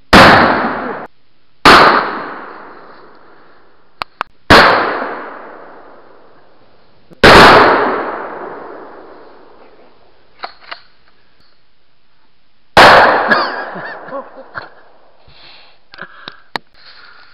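Five gunshots at irregular intervals, each followed by a long echo dying away through the woods. Between shots there are a few light clicks.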